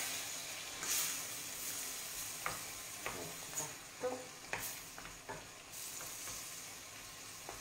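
A spoon stirring a crab and tomato sauté in a stainless steel pan, with irregular light knocks against the pan over a steady sizzle. White wine has just been added and is cooking off.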